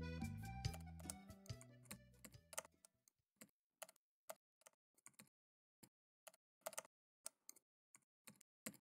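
Band music fading away over the first couple of seconds, then a sparse, irregular run of faint clicks: a typing sound effect, keys struck as text is typed out letter by letter.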